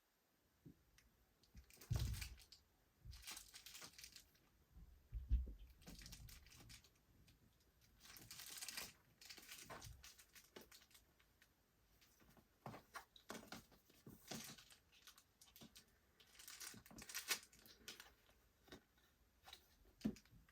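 Irregular crinkling and rustling of packaging as a mini backpack is unwrapped and handled, with a couple of dull knocks about two and five seconds in.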